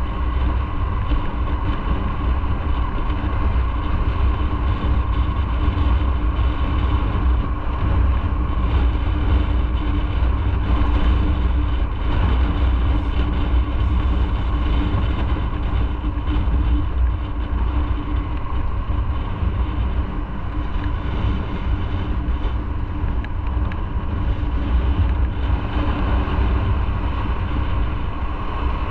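Motorcycle riding at a steady speed: engine running with wind rush and road noise, and a steady hum.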